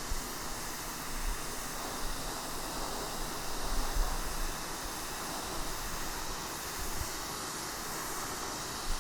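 Sun Joe SPX3000 electric pressure washer blasting water through its 15-degree nozzle onto concrete slabs: a steady hiss of high-pressure spray.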